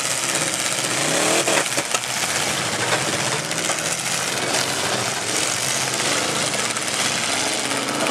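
Several demolition derby cars running and revving together, with engine pitches rising and falling over one another. A few sharp knocks of cars striking each other come about two seconds in.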